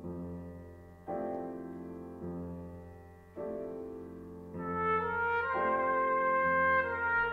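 Grand piano playing a slow run of chords, one struck about every second and left to ring. About four and a half seconds in, a brass instrument enters over it with long held notes and becomes the loudest sound.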